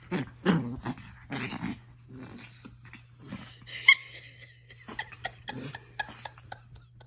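An angry Chihuahua growling and snarling in short bursts, with a brief high yip about four seconds in.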